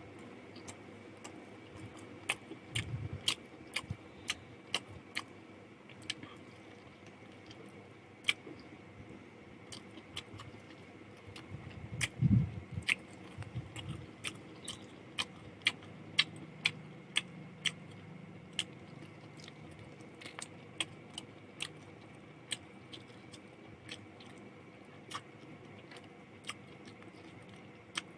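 A person chewing a meal of chicken curry and rice close to the microphone, with sharp wet mouth clicks and smacks about once or twice a second. A low thud about twelve seconds in is the loudest sound.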